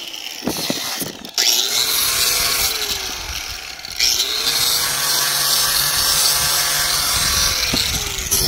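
Handheld electric sander-grinder roughing a seam of the geomembrane liner to prepare it for a patch. It runs twice, once from about a second and a half in and again from about four seconds in, each time spinning up, running steadily and winding down.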